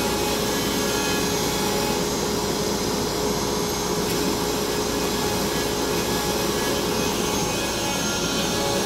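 A 4'x8' CNC router running a job: its Hitachi router spindle and the dust-collection vacuum on the head run together as a steady rushing noise with a constant tone through it.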